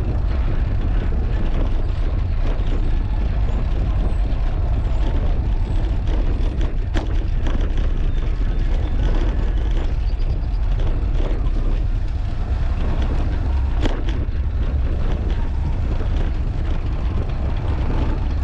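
Steady wind rumble buffeting a GoPro's microphone while riding a fixed-gear bicycle, over a hiss of tyre and street noise. Two sharp clicks stand out, one about seven seconds in and another about seven seconds later.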